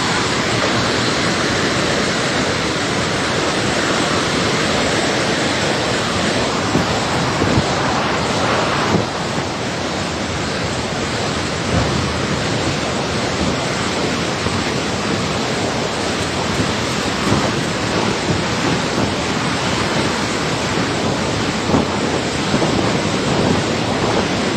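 Loud, steady rushing of a river in flash flood, a continuous wash of water noise.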